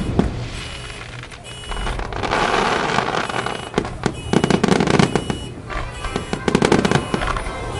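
Aerial fireworks bursting: scattered bangs, then a dense run of crackling from about two seconds in, with thick clusters of rapid reports around four to five and a half seconds and again near seven seconds.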